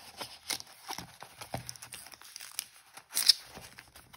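Paper, cardstock and a thin plastic sheet rustling and brushing as notebook inserts are handled and slid into place, with a louder rustle about three seconds in.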